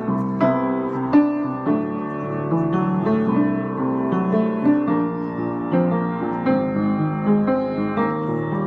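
Piano being played: a continuous stream of struck notes and chords, a melody over lower notes.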